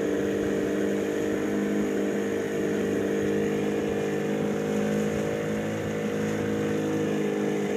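Motorboat engine running at a steady, unchanging pitch while the boat is underway.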